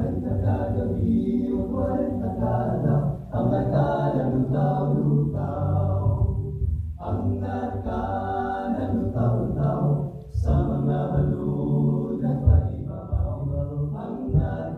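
Male a cappella group singing a song in close harmony into microphones through a PA, with a steady low bass part under the upper voices. There are brief breaks between phrases about three, seven and ten seconds in.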